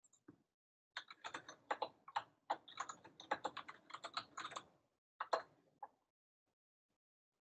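Computer keyboard being typed on, picked up faintly by a presenter's microphone: a quick run of keystrokes lasting about four seconds, then a short pause and a few more keys.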